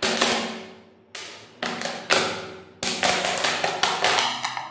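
Plastic water bottle being pierced with a compass point: a series of sharp taps and cracks, each dying away, spaced out at first and coming quicker near the end.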